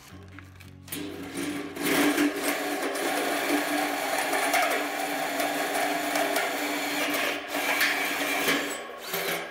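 Cordless drill turning a hole saw that cuts into a stainless steel square tube: a steady grinding whine of the teeth biting the metal, starting about a second in and running for about eight seconds.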